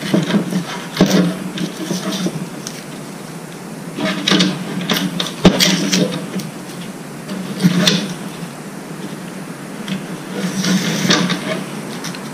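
Hands working plastic dash trim pieces: several short bursts of scraping and rustling, with a sharp click about five and a half seconds in.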